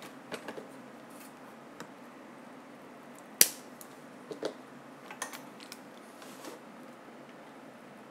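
Scattered small clicks and taps of hand tools being handled during a circuit-board repair, the sharpest a single click about three and a half seconds in.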